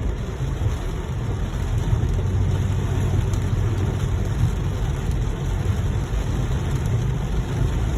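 Steady engine and road noise inside a Toyota Vios sedan's cabin while driving in heavy rain, a continuous low rumble with a rain hiss over it.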